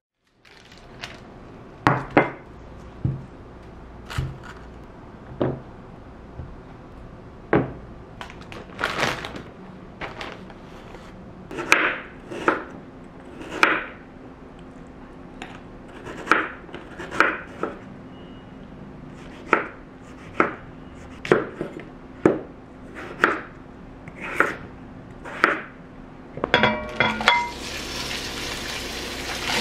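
Knife slicing vegetables on a wooden cutting board: separate sharp chops, roughly one every half-second to second. Near the end, sausage meat goes into a hot pot and starts to sizzle.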